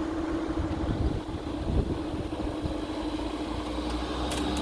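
Level crossing barrier mechanism running with a steady hum as the barrier booms lift back up, fading out near the end as the barriers reach the top.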